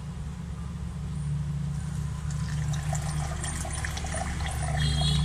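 Butterfly pea tea poured from a bottle into a plastic cup of lemon juice, a trickling pour that builds from about a second in. A steady low hum runs underneath.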